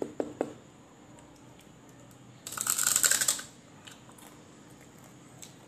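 Crunching bite into crispy chicharon (deep-fried pork rind): a burst of crackling about a second long midway through, after a few light clicks at the start.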